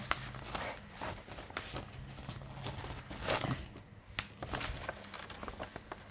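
Cross-stitch kit being handled and unpacked: scattered small clicks and rustles of packaging, with a louder rustle about three seconds in.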